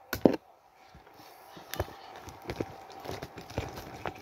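Irregular knocks and taps of small objects being set into a cardboard box, the loudest a sharp knock just after the start, followed by scattered lighter taps.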